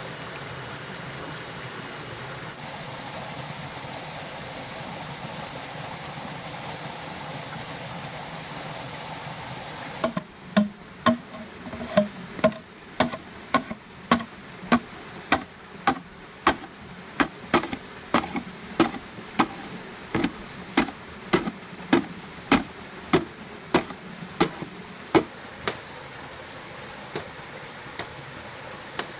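Steady rush of flowing stream water, then a run of about twenty sharp, evenly spaced blows on green bamboo, about one and a half a second, each with a short hollow ring. The blows stop about three-quarters of the way through, with two lone knocks near the end.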